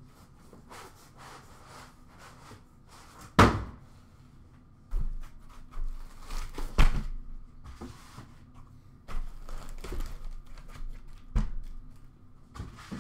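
Cardboard carton and foam packing being handled: a boxed card set is lifted out of a foam insert and set down on a glass counter. Three sharp thunks, the loudest a few seconds in, with rustling and bumping between them.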